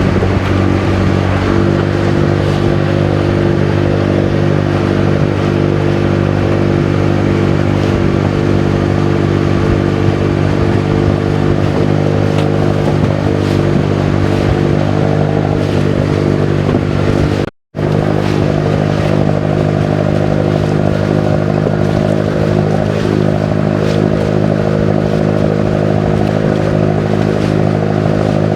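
Engine of a motorized outrigger canoe (bangka) running steadily at constant speed. The sound cuts out for an instant about two-thirds of the way through, then resumes unchanged.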